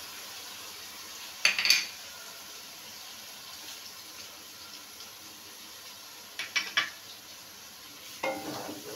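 Chicken gizzards and livers in a little water simmering and sizzling softly in an aluminium karahi. Sharp knocks of utensils against the pan come about a second and a half in and again a little before the end, and stirring starts near the end.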